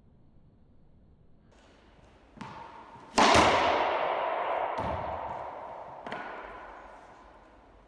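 Racquetball drill: a small knock as the ball bounces on the hardwood floor, then a loud crack about three seconds in as the racquet drives the ball into the front wall, ringing on in the court's echo. Two lighter knocks follow as the ball comes back.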